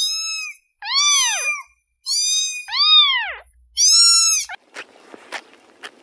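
Kitten mewing: about five short, high-pitched mews, each rising and falling in pitch, then a few faint clicks near the end.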